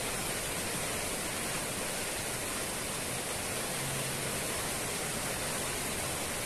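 Heavy rain falling outside, heard from indoors as a steady, even hiss.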